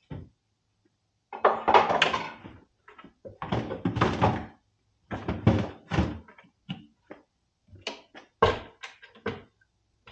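Plywood chuck box being closed up in a pickup bed: wooden doors and a cover panel knocked and thudded into place. Three clattering clusters about a second long come first, then a handful of sharper single knocks.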